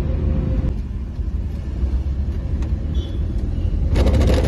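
Road vehicle driving, heard from inside: a steady low engine and road rumble, with a louder rattling rush of noise near the end.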